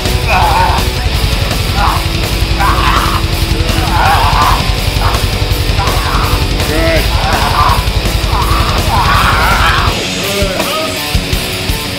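Loud heavy metal music with a fast, pounding drum beat; the drums drop out about ten seconds in.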